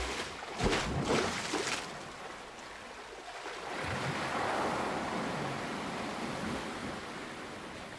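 A soft rushing noise, like a wave washing in, that swells toward the middle and then eases off. A few short knocks come in the first two seconds.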